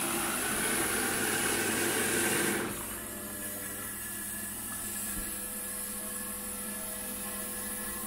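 Samsung WF1702NHWG washing machine starting a rinse-and-spin cycle: a rushing hiss of water flowing in through the inlet valve and dispenser cuts off suddenly about three seconds in, leaving the machine's steady hum.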